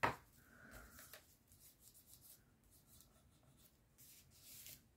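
Faint rubbing and rustling of cardstock under hands pressing a layered card down onto a cutting mat, with one short knock at the start and a second stretch of rubbing near the end.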